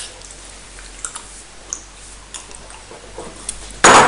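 Faint scattered clicks and light handling of ceramic cups. Near the end comes a sudden loud burst of noise.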